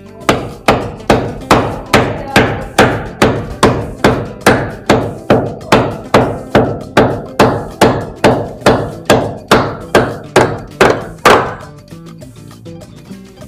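Steel hammer struck again and again in an even rhythm, about two and a half blows a second, fixing a wooden switchboard to a wall; the blows stop about 11 seconds in.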